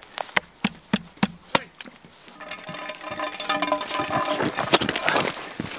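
Ice-fishing tip-up spool spinning as a fish runs with the line, ticking about three times a second. After about two seconds the ticking gives way to a denser scraping and rustling at the hole.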